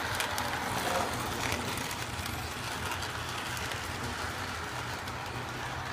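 HO scale Santa Fe model train running in reverse around its track: a steady rumble and whir of wheels and motor, with a few light clicks in the first second or so.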